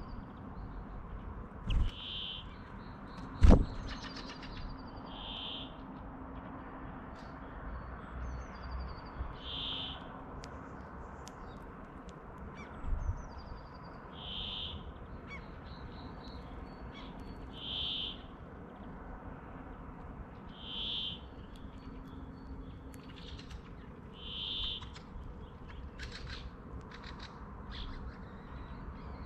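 Brambling song: a short wheezy buzz repeated every three to four seconds, with other small birds twittering higher up. Two sharp knocks near the start are the loudest sounds, with a softer one about halfway through.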